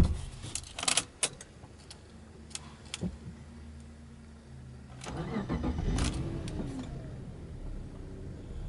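A thud and a few clicks, then about five seconds in the Subaru Legacy B4 3.0R's 3.0-litre flat-six is cranked and starts, its revs flaring briefly before settling into a steady idle.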